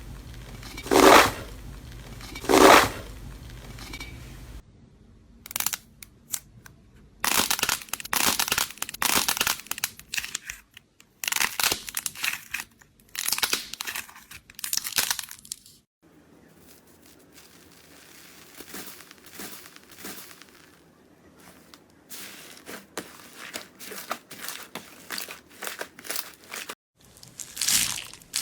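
Slime being squeezed, pressed and pulled by hand, in bursts of dense crackling and crunching a second or two long. The sound changes a few times as one short take gives way to the next.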